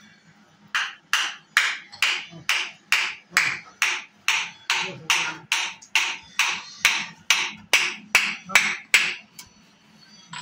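Footsteps in rubber flip-flops on a concrete floor, about twenty quick, even steps a little over two a second, that stop about a second before the end. A faint steady hum sits underneath.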